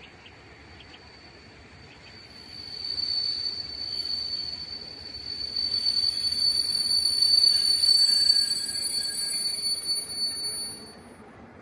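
Steel train wheels squealing on the rails of an approaching train: a steady high-pitched squeal that swells over several seconds, then cuts off shortly before the end.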